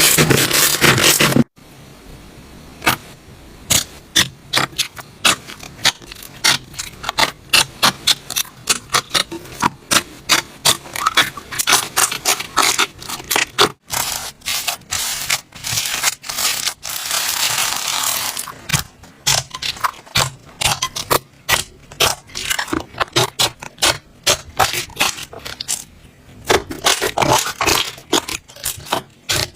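Slime being squeezed and poked by hand, making an irregular run of sharp little clicks and pops.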